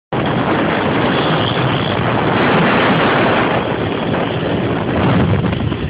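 Small motorcycle engine running under steady, heavy wind noise on the microphone.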